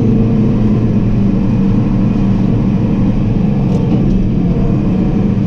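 Large harvest machine's engine running steadily under load with a low rumble.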